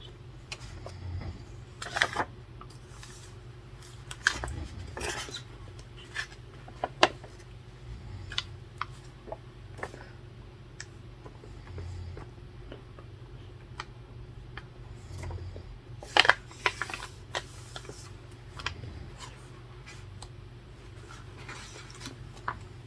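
Scattered clicks and taps of pens and stationery being handled on a desk during study, over a steady low hum. A few of the taps are sharper and louder, the loudest cluster about two thirds of the way through.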